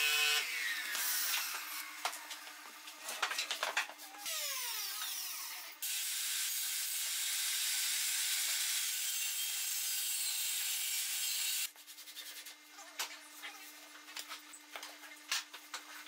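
A cordless drill's motor whine driving a screw into pine stops just after the start. Clicks and handling noise follow, then a steady hiss-like noise for about six seconds, then pencil scratching and small taps on the board.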